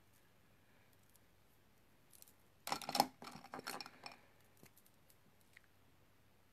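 Small hard clicks and clinks of make-up items being handled while a lip pencil is picked up: a quick cluster about two to four seconds in, then a couple of faint ticks.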